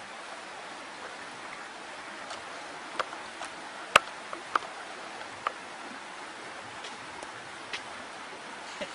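Steady hiss of running water, with a scattered handful of sharp clicks and ticks; the loudest click comes about four seconds in.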